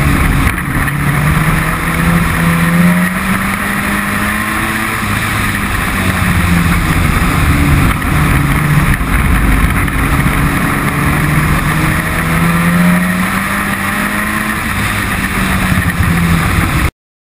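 Race pickup truck's engine heard from a camera mounted on the truck, its pitch rising and falling as it accelerates and backs off, over a steady hiss of rain and wind. The sound cuts off abruptly near the end.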